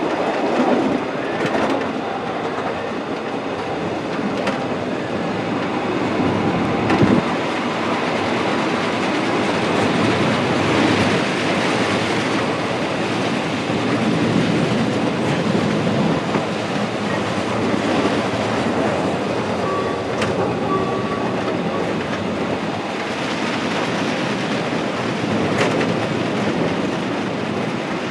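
A 90 cm gauge island passenger train running: a steady rumble of coach wheels on the rails, with occasional clicks over rail joints as it rounds a curve.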